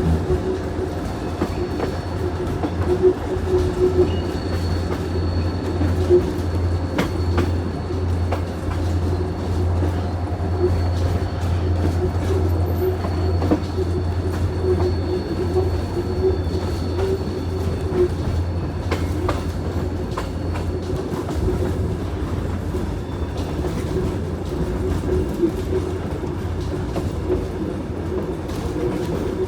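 Kuranda Scenic Railway train running on the rails: a steady low rumble with scattered clicks from the wheels over the track. A faint, thin, high squeal runs from about four seconds in to about twenty-one seconds.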